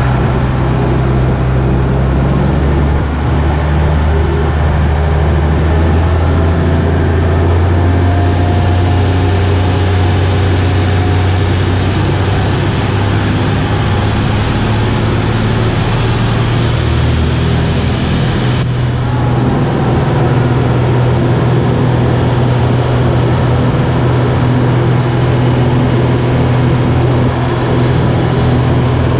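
A motor boat's engine running steadily at cruising speed under way, a low drone over the rushing noise of the wake and water against the hull.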